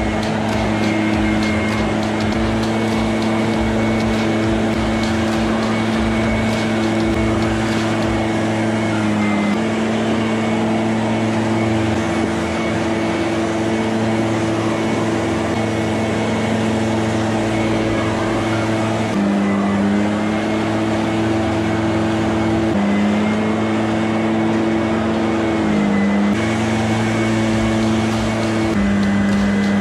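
Leaf blower running steadily, driving air through an air-jet snow shovel attachment to clear snow: a constant whine over a rush of air. Its pitch drops briefly a few times.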